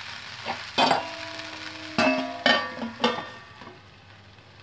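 A steel plate being set on a steel kadhai as a lid, with a handful of metallic clanks that ring briefly, the loudest about two seconds in. A faint sizzle of the rice frying runs underneath and fades near the end.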